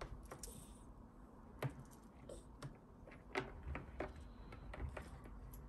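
Faint, irregular light clicks and soft rustles from a beaded feather wand cat toy being dangled and handled.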